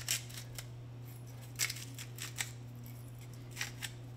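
A few brief, light clicks and taps from hands handling kitchen items at the counter, over a steady low hum.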